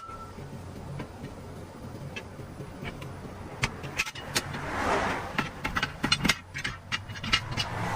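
A vehicle engine running steadily with a low hum. About midway a rush of noise swells and fades, then a quick series of sharp clicks and knocks follows.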